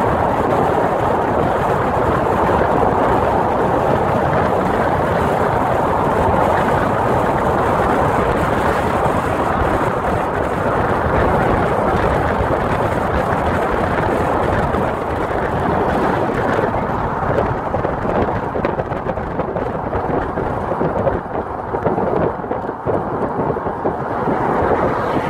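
Loud, steady rush of wind and road noise from a car driving at speed. It turns a little lower and more uneven over the last several seconds.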